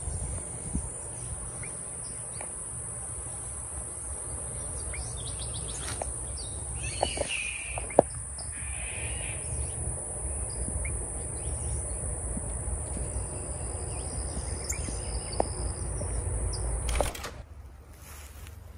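Outdoor garden ambience: a steady high-pitched insect drone with a few short bird chirps and low wind rumble on the microphone. The drone and rumble cut off suddenly near the end.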